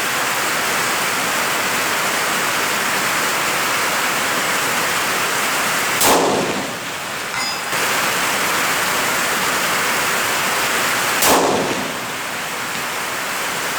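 Steady rain drumming on a tin roof, with two rifle shots from a 6mm Creedmoor bolt-action rifle, the first about six seconds in and the second about five seconds later, each followed by a short echo.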